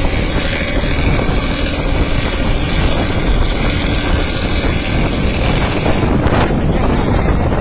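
Bus engine running with a growling exhaust, heavy low rumble, and wind buffeting the microphone. The high hiss falls away about six seconds in.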